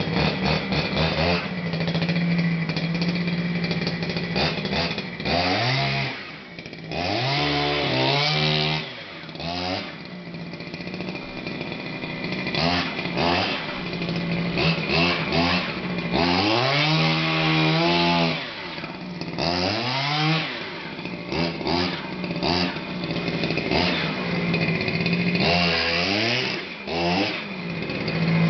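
Small two-stroke gas engine of a 1/5-scale RC truck running: a steady idle broken by about six throttle blips, each rising and falling in pitch. It is a cold engine being warmed up.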